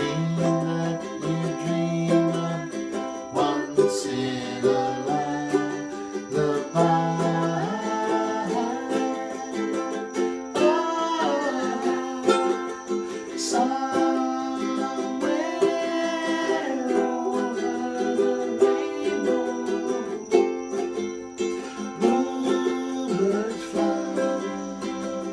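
Ukulele strummed in a steady rhythm, working through a simple chord progression with the chords changing every second or two, in a small room.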